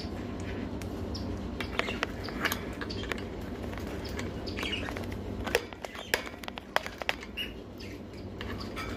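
Ringneck parakeet's beak tapping and nibbling at the phone close to the microphone: an irregular run of sharp clicks, loudest in the second half, with a few short soft chirps.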